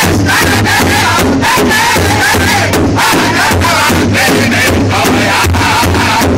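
Powwow drum group: several men strike a large shared bass drum together with drumsticks in a steady, fast beat while singing in high, wavering voices in unison.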